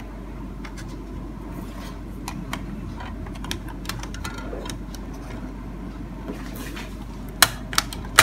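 Small plastic clicks and handling noises as a DVD-RW disc is laid on a DVD writer's open tray, with two sharp clicks near the end as the disc is pressed down onto the spindle hub. A steady low hum runs underneath.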